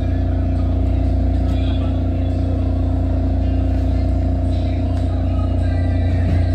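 Inside a moving elevated subway train car: a steady, loud low rumble of the running train with a constant hum over it.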